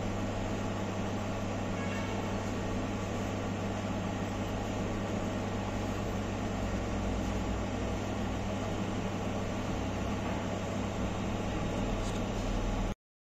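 Steady electrical hum of workshop machinery, a low mains hum under a fan-like whirr, that cuts off abruptly near the end.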